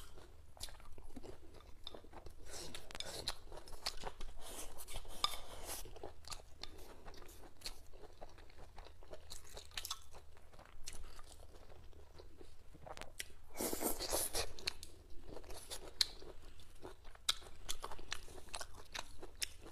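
Close-up eating sounds of a person chewing spicy food: a steady run of short, crisp crunches and chewing, with a louder burst of crunching about two thirds of the way through.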